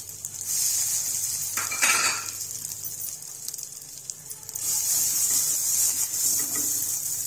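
Ginger paste sizzling in a hot nonstick frying pan, the hiss dying down for a couple of seconds midway and then coming back as a silicone spatula stirs it.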